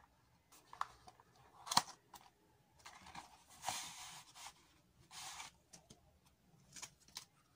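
A small cardboard box being opened. A utility knife cuts its seal with a few sharp clicks and scrapes, the loudest click about two seconds in. Then the inner tray slides out of its paper sleeve with soft scraping swishes.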